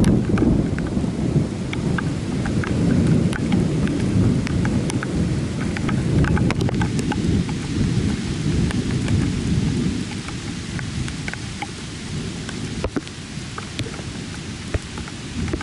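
Rolling thunder rumbling low and long, dying away about ten seconds in, while rain falls with scattered drops ticking close by.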